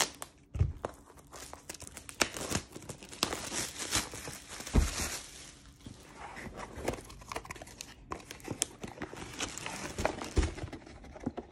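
Plastic packaging crinkling and tearing as a diamond painting kit's box and its plastic-sleeved cardboard canvas tube are unwrapped and handled, with a few soft thumps.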